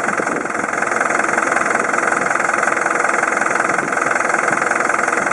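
Hino Dutro's 4.0-litre diesel engine idling steadily.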